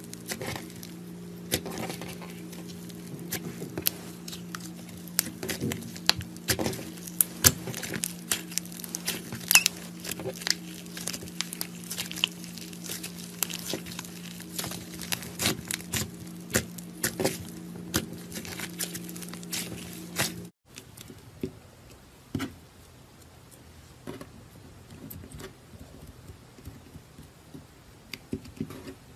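Clay slime kneaded, pressed and stretched by hand, giving many sharp sticky clicks and crackles. About two-thirds of the way in it changes to quieter, sparser clicks as fingers press a softer slime.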